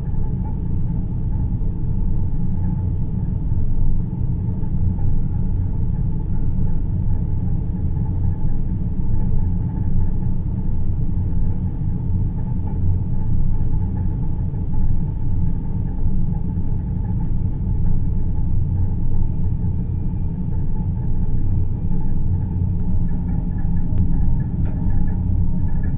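Synthesized deep-space ambience: a steady, dense low rumble with a softer hum above it, and two faint clicks near the end.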